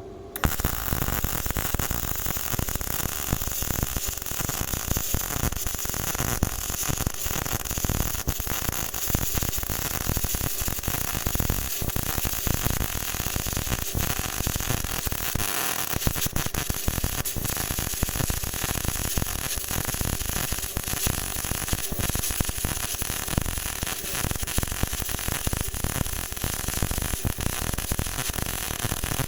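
Welding arc from a BestArc MIG145 welder crackling steadily as a bead is laid, starting abruptly and dipping briefly about halfway through.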